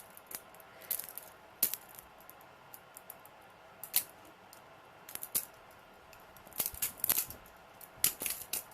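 Trainer butterfly knife being flipped open and shut, its metal handles and blade clicking and clacking against each other in quick groups of clicks, several times over.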